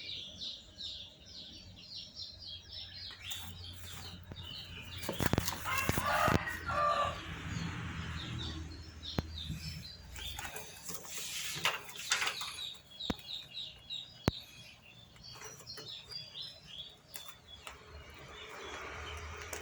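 Chickens in a flock: many short high-pitched peeps and calls, with clucking and louder bursts of wing flapping about five and eleven seconds in.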